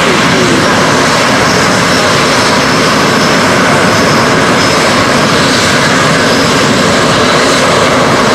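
SEPECAT Jaguar jet engines running at taxi power as the jet rolls past: loud, steady jet noise with a faint high whine.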